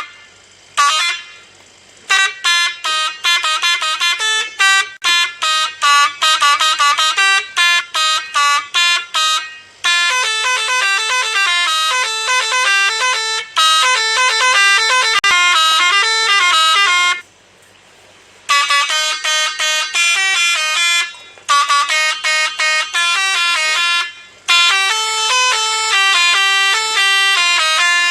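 Six-trumpet telolet basuri horn playing a fast melody of short notes stepping up and down, in phrases separated by brief pauses.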